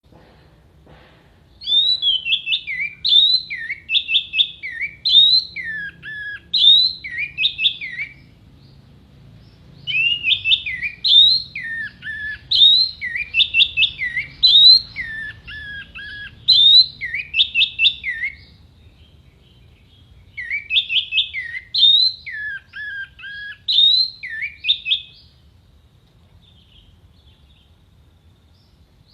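Orange-headed thrush (anis merah) singing in three bursts of quick, sharp whistled phrases that sweep up and down and dip into lower slurred notes, over a faint low hum.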